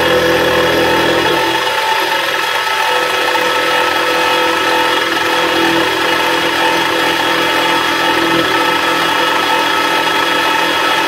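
Small bench-top milling machine running, its end mill cutting the center bar out of RC dozer track cleats: a steady motor whine with cutting noise over it. A low hum drops away about a second in.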